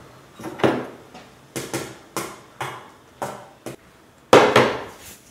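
Stainless-steel dishes and utensils knocking and clinking against each other and the wooden table. There is a string of about eight separate clatters, the loudest a little over four seconds in.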